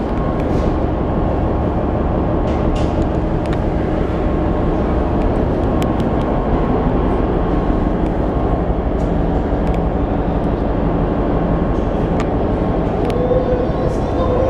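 Steady loud drone of a container ship's machinery, with a hum of several steady tones, echoing in a steel below-deck passageway. Scattered light clicks and knocks of footsteps and hands on steel stairs and rails.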